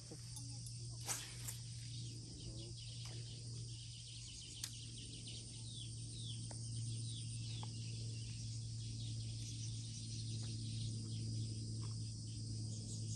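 Small birds chirping repeatedly over a steady low hum, with a few faint clicks.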